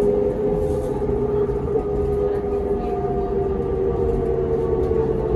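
New Flyer D40LF diesel transit bus with a Cummins ISL engine and ZF Ecomat six-speed automatic running underway, heard from inside the passenger cabin: a steady whine of two close tones that drift slightly in pitch, over a low rumble.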